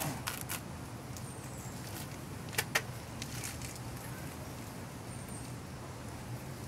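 A steady low hum, with a few light clicks near the start and two sharp metallic clicks about two and a half seconds in, from hands working at the boat dolly's steel caster post and bottle jack.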